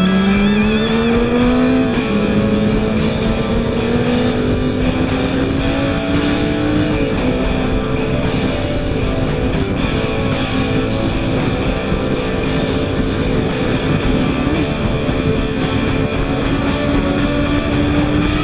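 Suzuki GSX650F inline-four engine pulling under acceleration. Its pitch rises, drops at an upshift about two seconds in and again around seven seconds, then climbs slowly. Background guitar music with a steady beat plays over it.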